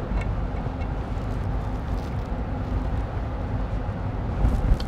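Steady low rumble and hiss of workshop background noise, with a faint steady hum.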